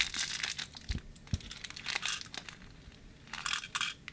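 Plastic candy bag crinkling and rustling as it is handled and opened, with two soft low thumps about a second in and a busier burst of crinkling near the end as the candies are poured into a plastic dispenser.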